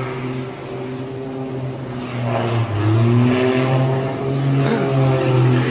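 Small aircraft's engine running in a steep dive, a steady drone whose pitch wavers up and down.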